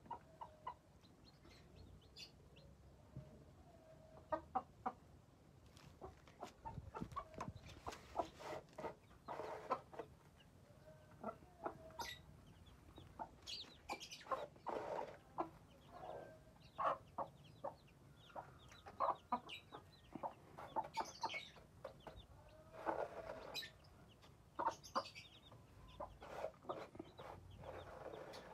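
Mother hen clucking to her chicks in short, irregular runs of clucks, with a few high chick peeps now and then.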